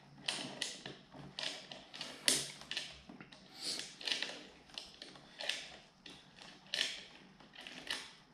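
A hand tool turning out a speedometer mounting screw: a run of short clicking and scraping strokes, about two a second.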